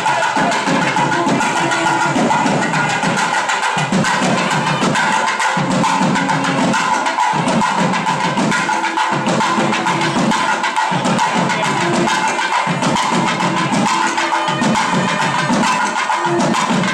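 Loud music with rapid, steady drumming and held high tones running over it.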